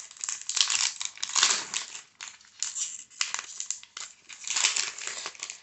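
Foil trading-card pack wrapper crinkling in the hands in irregular bursts.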